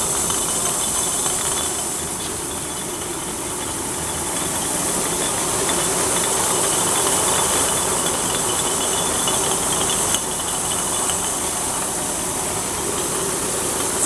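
Semi-automatic rotary glass-bottle washing machine running, its drum turning used beer bottles past the brush heads: a steady hissing rush with a faint mechanical hum beneath. A small click sounds just after ten seconds in.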